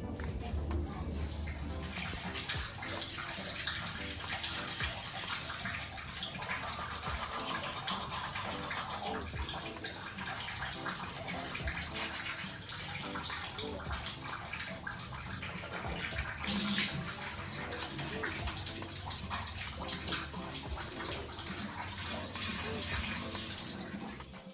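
Water running and splashing steadily, with one brief louder splash about two-thirds of the way through.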